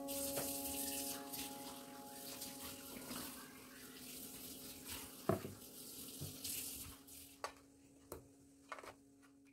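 Runny cake batter poured and scraped from a plastic bowl into plastic containers, a soft wet pouring hiss with a few light knocks as the containers are handled and set into a metal steamer basket. A held note of soft background music lingers underneath.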